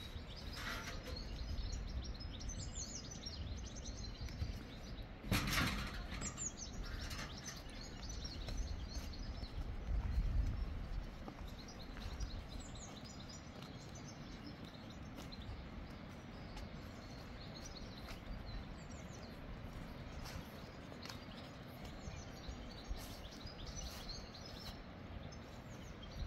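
Small birds chirping, many short high calls throughout, over a steady low outdoor rumble. A brief louder noise about five seconds in.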